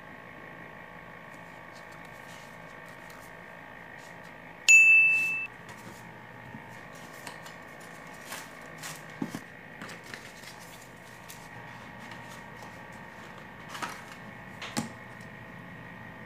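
Hands handling a speaker's cardboard box and packaging: scattered small clicks and taps, with a few sharper knocks near the end, over a steady hum. About five seconds in, a single loud high-pitched electronic beep sounds for under a second and fades.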